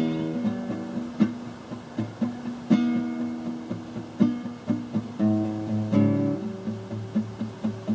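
Acoustic guitar played instrumentally: strummed chords every second or so with lighter notes picked between them.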